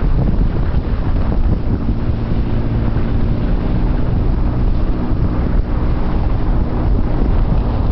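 Storm wind buffeting the microphone: a loud, steady rumbling rush with no break.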